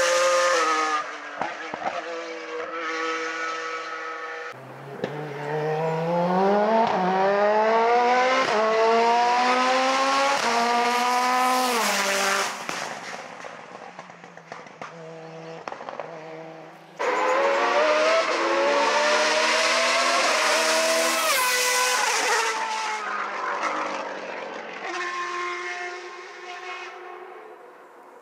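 Racing car engines accelerating hard past the roadside, their pitch climbing and dropping back at each upshift. There are several passes, and the sound changes abruptly between them.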